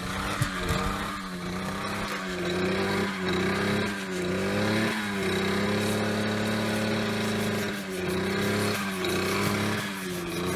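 A motor or engine running steadily with a low hum, its pitch dipping briefly and recovering every second or so.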